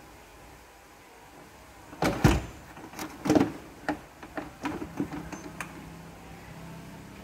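A run of sharp knocks and clunks, the loudest about two and three and a half seconds in, then a low steady hum that starts about five seconds in and holds.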